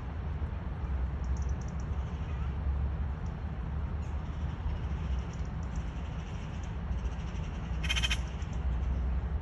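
A single short, loud bird call about eight seconds in, over a steady low rumble and faint high chirping.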